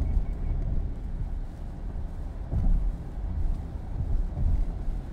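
Road noise inside a car's cabin on a wet highway: a steady low rumble of tyres and engine, swelling briefly about two and a half seconds in.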